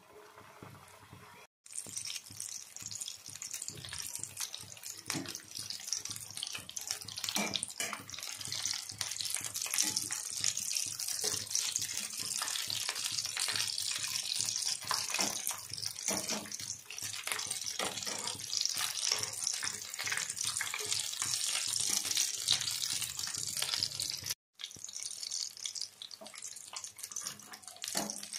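Bread rolls deep-frying in hot oil: a steady sizzle with many small crackling pops. It starts faint, breaks off for a moment about a second and a half in, and comes back loud; it breaks off again about 24 s in and then runs on a little quieter.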